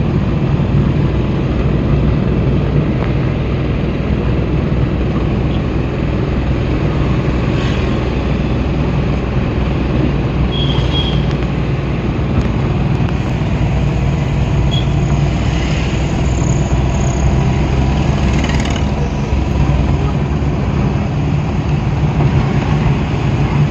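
Steady engine and road noise from inside a moving vehicle's cabin, a continuous low rumble.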